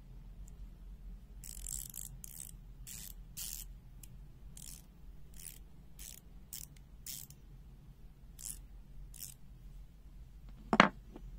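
A-KRAFT 6.35 mm (1/4-inch) bit ratchet handle clicking in about a dozen short bursts, roughly every half second, as its head is turned by hand. A single loud knock near the end.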